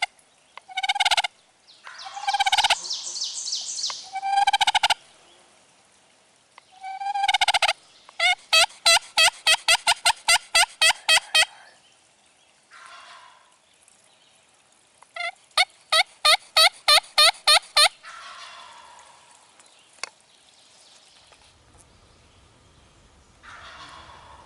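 Wild turkeys calling: several rattling gobbles in the first half, and two long runs of rapid, evenly spaced turkey notes a few seconds apart, with fainter calls near the end.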